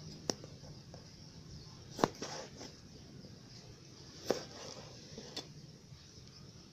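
A kitchen knife knocking on a cutting board while a tomato is cut and seeded: four sharp knocks spread a second or two apart, the loudest about two seconds in.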